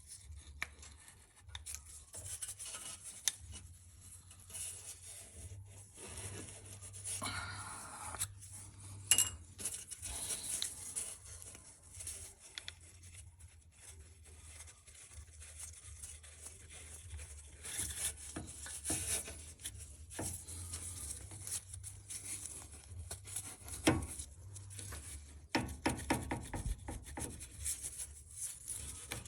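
Intermittent rubbing and scraping with scattered light clicks and knocks, like tools and parts being handled, over a low steady hum.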